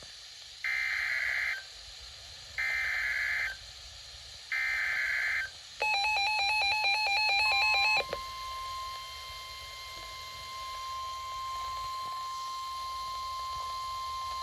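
Emergency Alert System activation: three short bursts of the digital SAME header data, each about a second long. About two seconds of a rapidly pulsing alert tone follow, then a steady single attention tone is held on.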